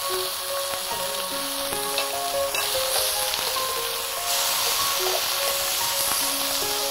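Marinated meat and vegetables sizzling on a tabletop electric grill plate, a steady hiss. A soft melody of background music plays under it.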